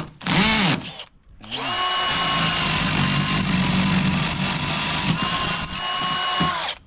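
Power drill with a 1/4-inch bit boring a bolt hole for a trolling-motor mount: two short trigger bursts that speed up and slow down, then a steady run of about five seconds that cuts off suddenly near the end.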